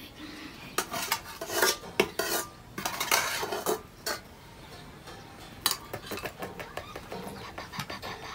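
A metal spoon scraping and clinking against a large aluminium cooking pot as chatpate is scooped out, busiest in the first few seconds, then lighter, scattered clinks.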